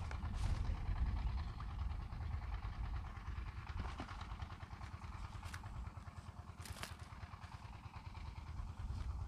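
Wind buffeting the microphone in a steady, fluttering rumble, with a few faint clicks and rustles from handling.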